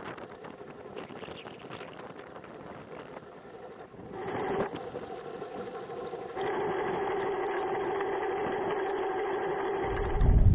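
Kayak under way on the lake: a soft wash of water and wind, then a steady mechanical hum that comes in about six seconds in and holds at one pitch.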